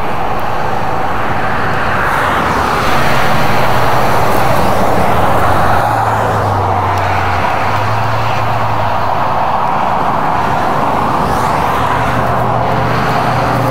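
Steady road traffic noise, a continuous rush of passing vehicles with a low engine hum under it, swelling for a few seconds about three seconds in.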